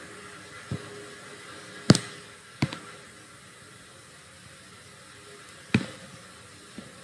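About five sharp clicks at uneven intervals, the loudest about two seconds in, over a faint steady hiss: computer mouse clicks while objects are being selected on screen.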